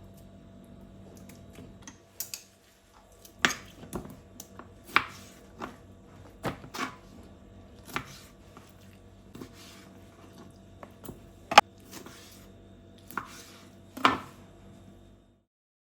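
Kitchen work: a dozen or so irregular knocks and clatters of utensils and dishes over a faint steady hum, cutting off suddenly near the end.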